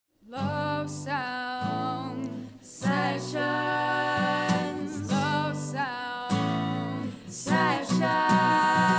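A woman's voice singing a song with a wavering, vibrato-like pitch over held keyboard chords.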